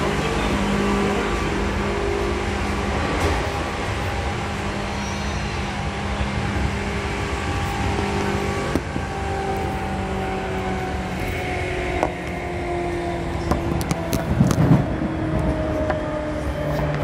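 Seibu 2000 series electric train heard from inside the car: a steady hum under a motor whine that falls slowly in pitch as the train slows toward the next station. Sharp clicks from the wheels on the track come through near the end.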